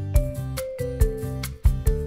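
Upbeat instrumental background music with a steady beat and a melody stepping from note to note.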